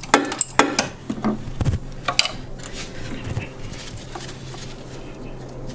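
Metal clinks and taps of a socket wrench working on a coolant fitting in the engine block, loudest in the first couple of seconds, then fading to a few light ticks. A steady low hum runs underneath.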